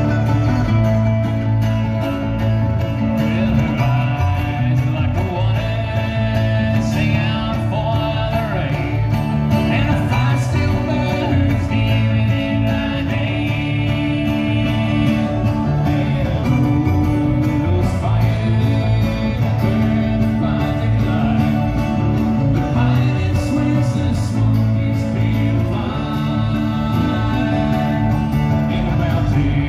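Bluegrass band playing live: banjo, upright bass, fiddle, mandolin and acoustic guitar together, with the upright bass holding a steady low line under the picked strings.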